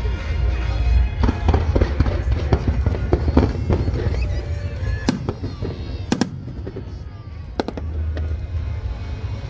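Fireworks display: shells bursting in quick succession over a deep rumbling boom, with a few sharper cracks about five and six seconds in.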